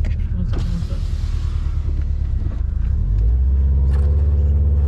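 Subaru WRX STi's boxer four-cylinder engine running at low speed during a U-turn, with a brief hiss about half a second in; the engine note grows louder and steadier from about three seconds in.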